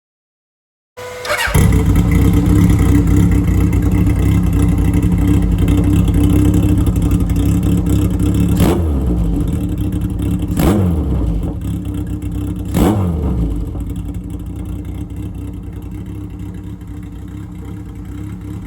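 Kawasaki KZ1000 air-cooled inline-four motorcycle engine running loud through short-pipe exhaust with an inner silencer (baffle) fitted. It comes in about a second in, takes three quick throttle blips about two seconds apart near the middle, then settles back and gets slowly quieter.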